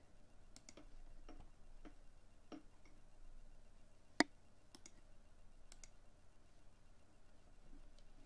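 A computer mouse click at the start, then faint scattered ticks and clicks, with one sharper click about four seconds in.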